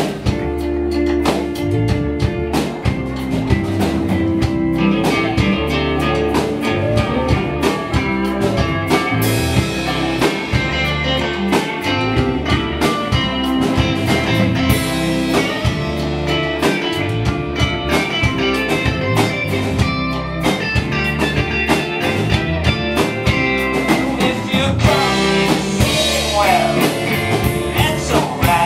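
A live band playing a song, guitar over bass and a drum kit keeping a steady beat.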